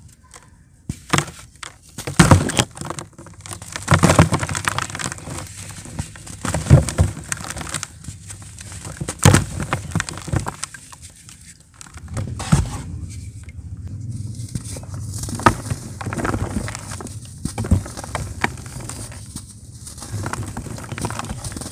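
Hands crushing and crumbling a water-dipped block of pure cement: irregular crunches and sharp cracks, with crumbs and powder pattering down into a plastic tub.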